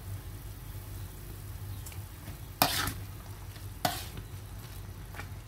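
Luffa vegetable soup simmering in an aluminium wok, with a metal ladle stirring it and scraping against the side of the wok twice, about a second apart, a little past halfway.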